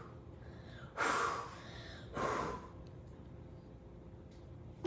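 Two short puffs of breath blowing out birthday candles, about a second in and again just past two seconds in. The candles are trick candles that relight.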